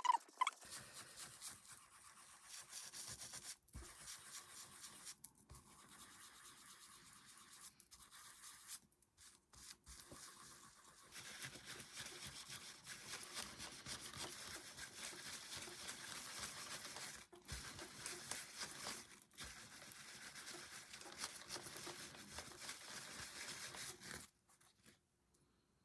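Repeated scraping strokes against the back of a small mirror glass, lifting the white backing paint that has been softened by paint stripper. The strokes come in runs with short pauses and stop shortly before the end.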